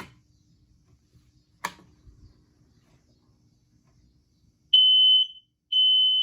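Kidde wireless smoke alarm being tested: a click, then about three seconds later its loud, high-pitched alarm starts, two half-second beeps about a second apart.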